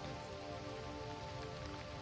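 Heavy rain falling steadily on a road: an even hiss with scattered drop patter. Soft sustained tones run underneath it.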